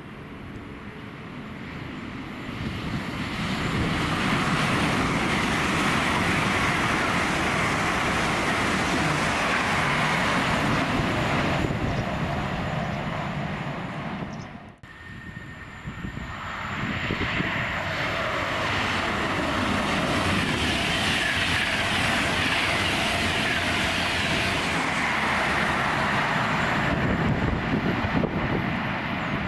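High-speed passenger trains, an LNER Azuma among them, running through at line speed: a long steady rush of wheel-on-rail and air noise that swells over a few seconds. It breaks off abruptly just before halfway and builds again soon after as another train passes.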